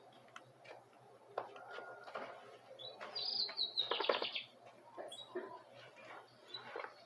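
Bananaquits chirping, many short high calls, with a louder run of quick high notes stepping down in pitch about three seconds in, lasting a second and a half.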